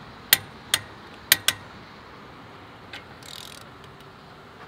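Click-type torque wrench clicking on a wheel's lug nuts, each sharp click signalling that a nut has reached its set torque: four clicks in the first second and a half, then a fainter one about three seconds in.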